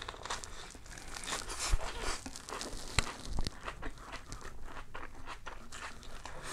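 Close-up crunching and crackling of a crispy rice pancake (banh xeo) being eaten: irregular crisp crackles and crunches, with a sharp snap about three seconds in.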